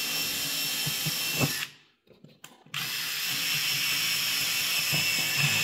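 Cordless DeWalt 20V drill boring through steel roofing panel, a steady high whine of the bit cutting metal. It runs, stops for about a second, then starts again and runs on.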